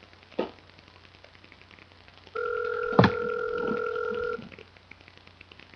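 Telephone ringback tone through a phone's speakerphone: one steady ring about two seconds long, starting a couple of seconds in, while the call rings unanswered at the other end. A sharp click sounds partway through the ring.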